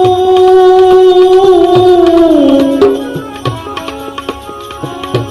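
Gujarati bhajan music: a long held note that slides down to a lower pitch about two seconds in, then a quieter instrumental passage of sustained melody notes over regular hand-drum strokes.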